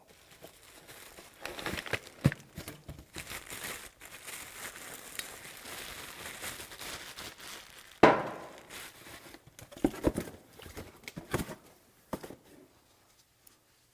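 Packaging crinkling and rustling as a new wheel bearing hub assembly is unwrapped, with a sharp knock about eight seconds in and a few lighter clicks after it.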